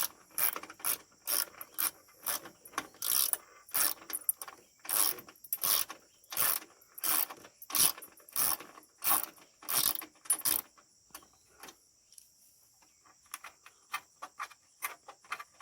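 Hand socket ratchet on an extension clicking in steady swings, about two strokes a second, as a bolt is backed out. The ratcheting stops about ten and a half seconds in, leaving only faint light clicks.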